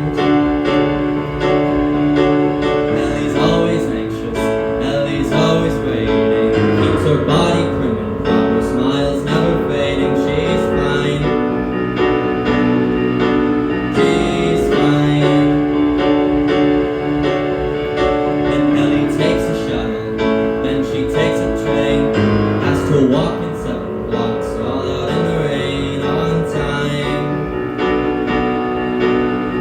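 Piano music from a musical-theatre song, played as held chords that change every few seconds.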